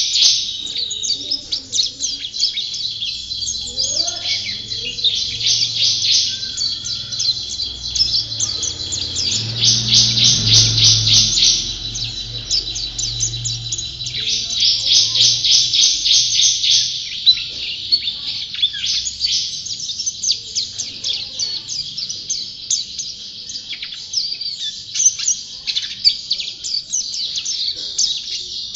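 White-eye (pleci) singing a long, unbroken, high-pitched chattering song of very rapid notes, rising into louder, denser runs every few seconds.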